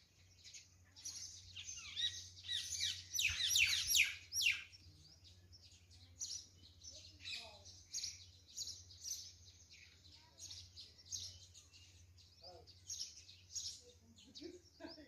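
Many small birds chirping together: a dense chorus of short high chirps and quick falling notes, busiest and loudest a few seconds in, then thinner, scattered chirps.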